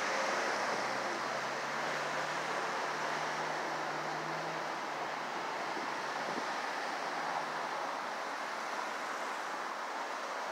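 Steady outdoor street ambience: a wash of wind and distant traffic noise, with a faint low engine hum that fades out about halfway through.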